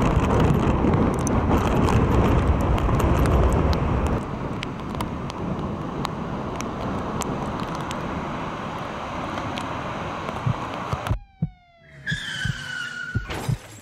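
Wind blowing on the microphone over ocean surf: steady, heavy noise that eases after about four seconds. About eleven seconds in it cuts off abruptly to electronic sound effects with sliding tones and two held notes.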